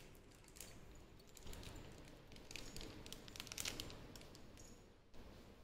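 Faint rustling with scattered light clicks, densest a little past the middle.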